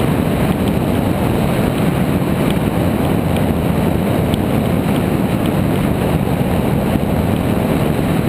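Steady rushing wind noise on the microphone of a camera mounted on a hang glider's wing in flight, strongest in the low range and even throughout.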